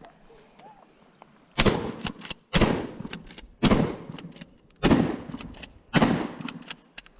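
Remington 870 TAC-14 DM short-barrelled pump-action shotgun fired five times in quick succession, about a second apart, starting about a second and a half in. The pump action clacks between the loud shots.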